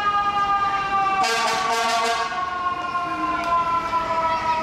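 Fire engine siren in a long wail whose pitch falls slowly. A horn sounds for about a second, a second into it.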